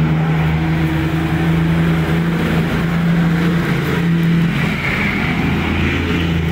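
Engine running steadily at idle: a constant low hum with an even, unchanging pitch.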